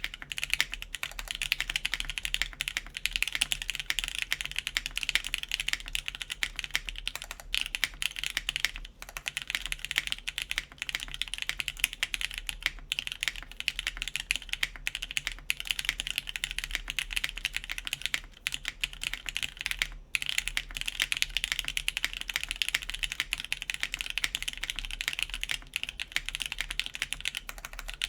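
Continuous fast typing on a custom mechanical keyboard (RAE Aurum, lubed Gateron Ink switches, carbon fiber plate, GMK keycaps), a dense stream of keystroke clicks with a few brief pauses.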